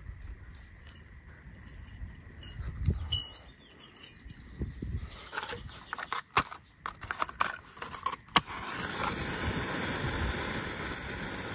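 Wooden matches scraped several times against an old matchbox striker strip, which he thinks has rusted, with a sharp strike about eight seconds in as one catches and flares. Wind buffets the microphone throughout.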